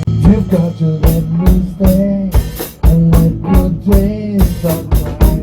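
A rock band playing: a drum kit keeps a steady beat under sustained notes that bend up and down in pitch.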